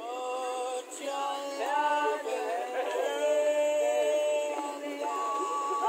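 Singing voices holding long, drawn-out notes, several pitches sounding together.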